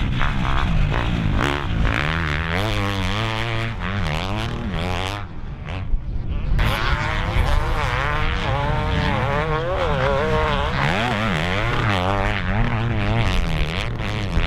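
Motocross bike engine revving up and down hard as the bike rides and shifts through the gears. The revs fall away briefly about five seconds in, then climb again.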